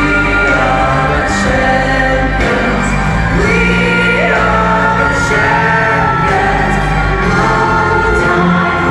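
Live arena concert music with singing, several voices and instruments holding and changing notes steadily, recorded loud on a mobile phone from the stands.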